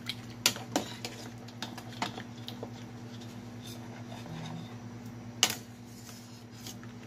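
Metal ladle knocking and scraping against a stainless steel soup pot while stirring: a few sharp clinks, the loudest about five and a half seconds in, over a steady low hum.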